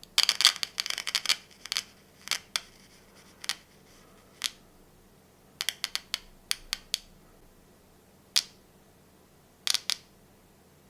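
A series of sharp clicks from working on the exposed headphone driver and its lead wires: a dense cluster in the first second and a half, then scattered single clicks and a couple of quick runs of three or four.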